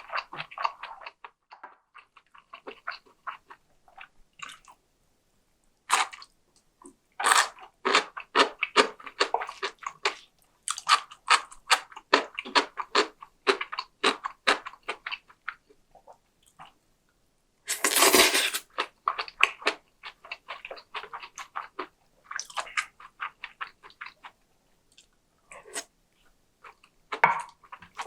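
Close-miked chewing with crisp crunching, in bouts of rapid small clicks broken by short pauses, with a few louder bites.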